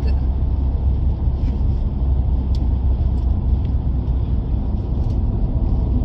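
Steady low rumble of a car's engine and tyres on the road, heard from inside the cabin of the moving car.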